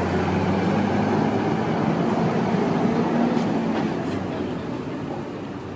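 Street traffic: a motor vehicle's engine running with a low steady hum, growing louder over the first few seconds and then fading away.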